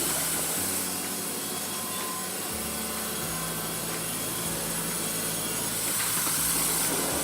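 Sawmill saw cutting through wood, a steady hissing run with a low hum that shifts pitch in steps.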